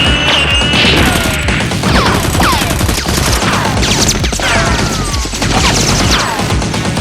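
Added gunfire sound effects: rapid bursts of shots mixed with repeated falling whizzing sweeps, over background music.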